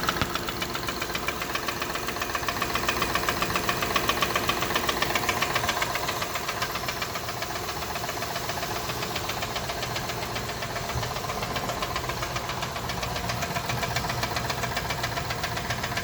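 2012 Acura MDX's 3.7-litre V6 running with a fast, steady knock repeating with the engine's rotation. The knock swells a little early on and eases in the middle.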